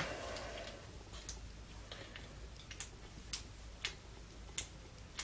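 Light, sharp clicks spaced irregularly as the plastic parts of a UK 13 amp plug and its fuse carrier are handled and fitted.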